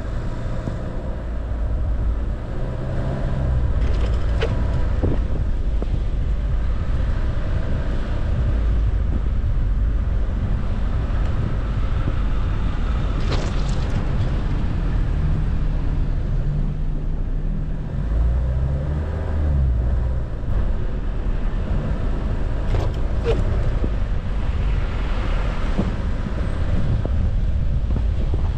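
Car driving slowly over snow-packed streets: a steady low engine and road rumble, the engine note rising and falling a few times. A few brief knocks stand out along the way.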